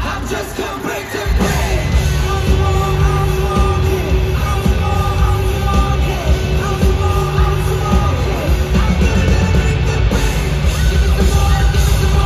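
Live rock band playing through a concert PA, heard from the audience: drums, electric guitars and keyboards. About a second in, the bass and drums drop out briefly, then come back in full.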